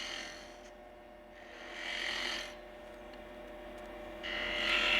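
Spindle gouge cutting into spinning wood on a wood lathe, hollowing a cup-shaped pocket, over the steady hum of the lathe motor. The hissing cut comes briefly at the start, again about a second and a half in, and louder and longer from about four seconds in.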